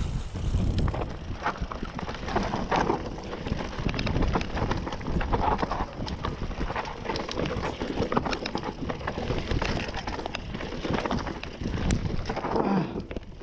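Mountain bike clattering down a rocky, gravelly singletrack: tyres crunching over loose stones and the bike rattling with many quick knocks, over a low rush of wind on the microphone.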